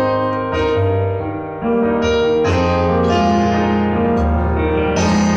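Piano sound from an electronic stage keyboard playing a song's slow instrumental introduction: sustained chords over bass notes that change about once a second.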